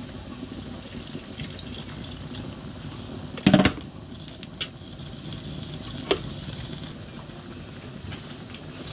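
Pot of food boiling on a gas stove, a steady bubbling hiss. A sharp clank about three and a half seconds in, with a couple of lighter clicks after it.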